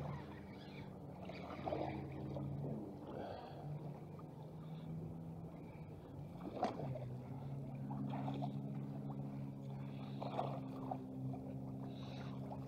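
A steady low hum of a few held tones, shifting slightly about two-thirds of the way through, with scattered short splashes and rustles. Near the end a small largemouth bass splashes in the shallows as it is pulled ashore.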